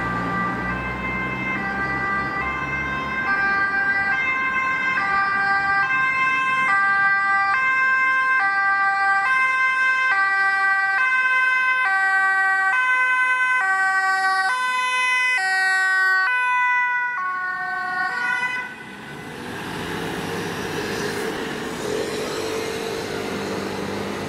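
Emergency vehicle's two-tone siren alternating steadily between a high and a low note, growing louder as it comes closer, then cutting off abruptly near the end. Engine rumble of passing traffic is heard at the start, and road noise follows once the siren stops.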